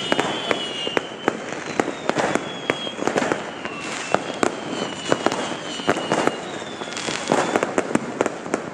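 Fireworks and firecrackers going off, many sharp bangs and crackles in quick succession, with a high wavering whistle over them.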